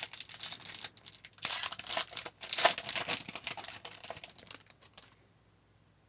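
Crinkling and tearing of a foil hockey card pack wrapper being opened, loudest about two and a half seconds in and stopping about five seconds in.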